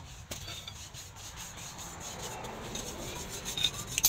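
Rasping, scraping metal-on-charcoal sound with a single knock about a third of a second in. The scraping grows faster and brighter near the end as a steel leaf-spring blank is pushed into a charcoal forge fire with tongs.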